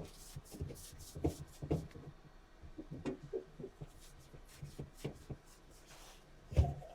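Containers and packets being handled and taken out of a fridge: irregular light knocks, clicks and rustling, with one louder thump near the end.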